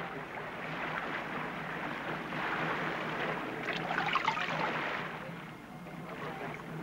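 Seawater sloshing and splashing against the side of a small boat, with a brighter patch of trickling and splashing about four seconds in as water pours from a plastic bucket.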